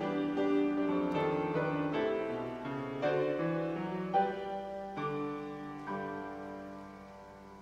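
Grand piano playing a slow, gentle piece that grows softer, its last chord fading away near the end.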